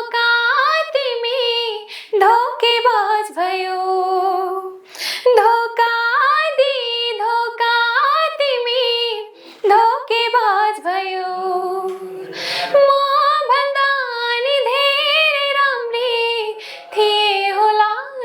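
A woman singing a Nepali folk tune (bhaka) unaccompanied, in long ornamented phrases, breaking twice for breath.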